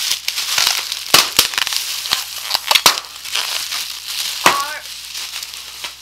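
Clear plastic bubble wrap and bags crinkling as they are handled and pulled from a cardboard box, with several sharp snaps about 1 to 3 seconds in.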